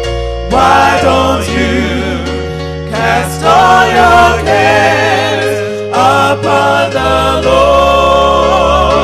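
Gospel song: voices singing long held, wavering notes over steady bass notes.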